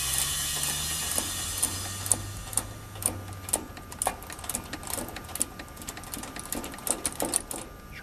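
Ratcheting refrigeration service wrench clicking irregularly, a few clicks a second, as it turns open the suction-side service valve stem on a split-system heat pump, letting the pumped-down refrigerant back into the line set. A low hum fades out over the first few seconds.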